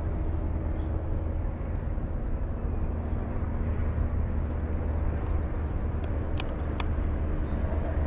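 Outdoor background noise: a steady low rumble, with two sharp clicks about six and a half seconds in.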